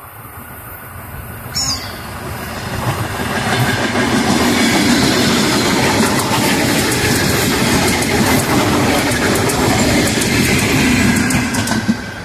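ER9M electric multiple unit passing close by. Its noise builds over the first few seconds and stays loud as the cars go by, with the wheels clicking over the rail joints.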